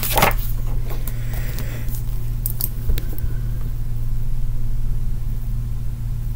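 A steady low hum. In the first three seconds there are paper rustling and a few light clicks as a sheet of paper is handled and set down.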